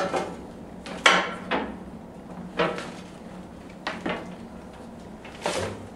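Footsteps going down stairs: about seven clacking steps at an uneven pace, the loudest at the start and about a second in.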